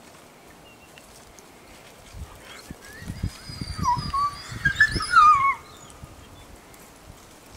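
Grey wolves whining and whimpering, several wavering high calls that rise and fall between about three and five and a half seconds in, with low rumbling underneath.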